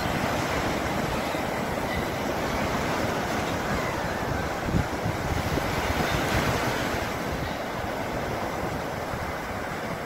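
Sea surf breaking and washing up a sandy beach, a steady rush that swells a little around the middle, with wind buffeting the microphone.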